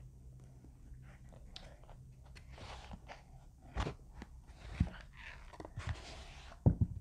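Handling noise of a hard-shell speaker carrying case being opened and a JBL Flip 5 lifted out of it: rustling and scraping of the case's fabric-covered shell, with a few sharp knocks as the case and speaker are handled.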